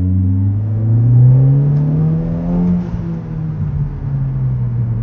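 Kia Forte GT's turbocharged 1.6-litre four-cylinder accelerating hard through an aFe Takeda Stage 2 cold air intake and MBRP axle-back exhaust. Its note rises steadily for nearly three seconds, then eases off and falls gently.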